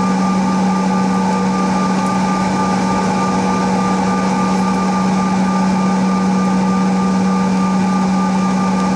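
Cabin noise of a Bombardier CRJ900 on the ground with its rear-mounted GE CF34 turbofans at low power: a steady low hum with several fainter steady whining tones above it over a constant rush of air.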